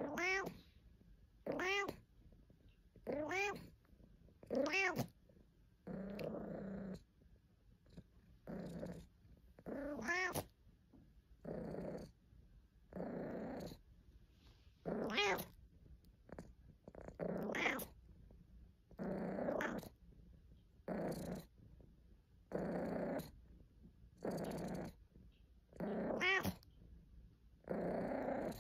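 British Shorthair cat making a steady string of short complaining calls, about one every second and a half. Some are clear meows that rise and fall in pitch, and others are rougher, growly grumbles.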